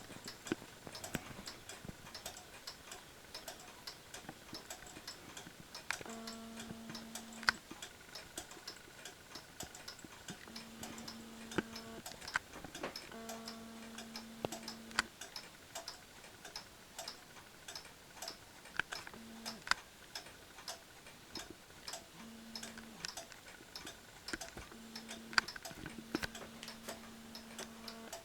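Mechanical clock ticking steadily. A low, steady tone sounds several times in stretches of a second or two, starting about six seconds in.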